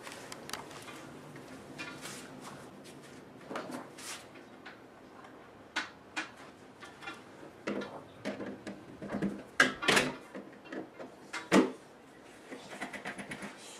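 Irregular clicks, knocks and light rattles of a door viewer (peephole) being worked on by hand at the door, with a few sharper knocks about six, ten and eleven and a half seconds in.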